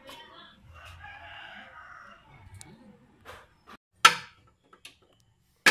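A rooster crows for about a second and a half. Then come two sharp knocks, the louder pair of sounds, about four seconds in and near the end.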